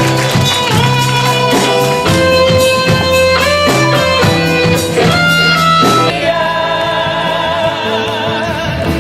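Instrumental music from a live concert performance, with sustained chords and melody notes. About six seconds in it turns sparser and a little quieter, with wavering held notes.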